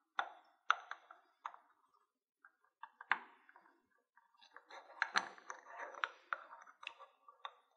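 Small metal clicks and light clatter of a screwdriver working screws out of a small encoder housing and the parts being handled. A few separate sharp clicks come first, then a busier run of clicks and handling noise about halfway through.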